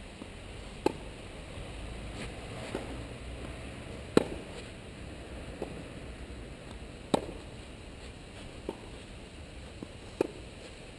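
Tennis rally on a clay court: sharp racket-on-ball hits, loud ones about every three seconds alternating with fainter ones in between.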